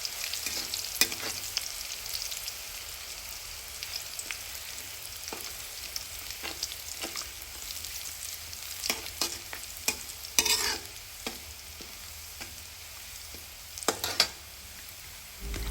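Crushed garlic sizzling in hot oil in a kadai as it fries to brown, with a spatula stirring it and clicking against the pan. There are a few louder scrapes about ten and fourteen seconds in.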